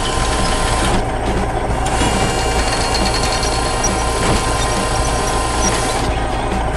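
Excavator engine sound effect running steadily, with a constant low hum.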